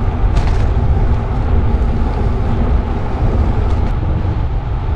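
Wind buffeting the microphone of a handlebar-mounted camera on a moving bicycle: a steady, loud low rumble.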